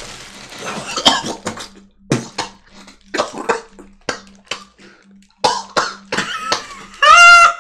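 A man coughing and gagging into a plastic bag after tasting a foul-smelling snack: the bag rustles at first, then a string of short coughs, and a loud strained cry near the end.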